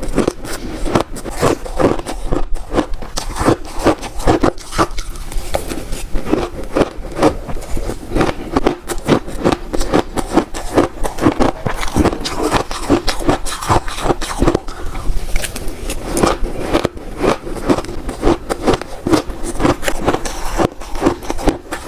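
Shaved ice being bitten and chewed close to the microphone: a steady run of crunches, about three a second.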